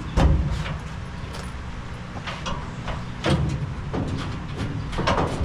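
A few heavy knocks and thumps from work on a Ford Model A car body as the body and its mounting blocks are forced into line. The loudest, a deep thump, comes about a quarter second in, with further knocks about three seconds and five seconds in.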